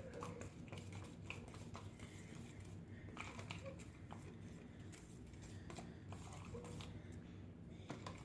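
Faint, irregular clicks and taps of a marker being stirred in a plastic container of water, over a low steady hum.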